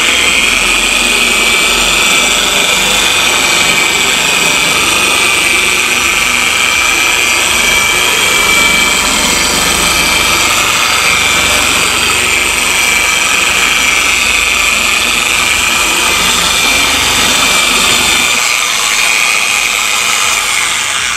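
Torq TorqX dual-action polisher running at its lowest speed setting, a steady whine, its foam pad working polish over car paint; this is the spreading pass before the higher-speed cutting.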